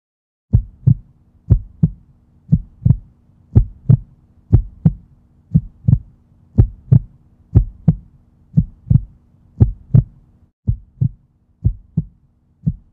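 Heartbeat sound effect: paired lub-dub thumps about once a second, over a faint steady hum that drops out about ten seconds in while the beats carry on.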